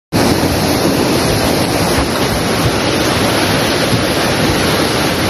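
Muddy floodwater rushing past in a fast torrent carrying debris, a loud steady rushing noise without a break.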